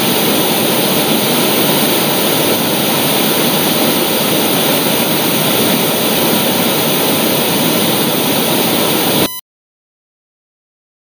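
Loud, steady rushing noise like white-noise static, spread evenly from low to high with no rhythm, that cuts off suddenly about nine seconds in.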